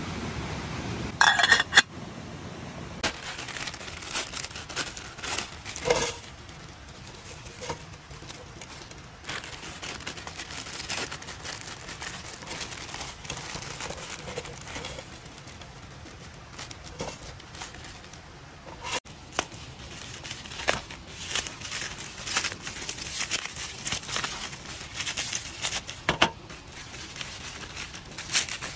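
Plastic instant-noodle wrappers and sachets being torn open and crinkled by hand, in irregular crackly bursts. For the first few seconds there is a steady hiss from a small campfire heating a pot of water.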